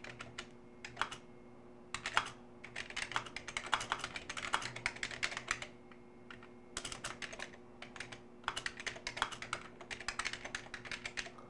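Typing on a computer keyboard: quick runs of key clicks broken by short pauses, over a faint steady hum.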